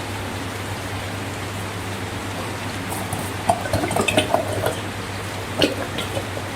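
Slime being handled, with a cluster of short wet, sticky clicks and squelches about halfway through and another a second later, over a steady hiss and low hum.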